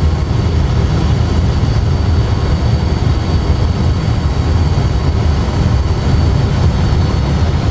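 Airbus A320 full flight simulator playing the steady low rumble of the airliner on its landing roll along the runway, with a faint, steady high whine over it.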